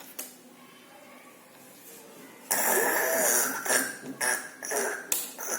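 A young child's rough, cough-like vocal burst starting about two and a half seconds in, followed by a few shorter, sharp bursts.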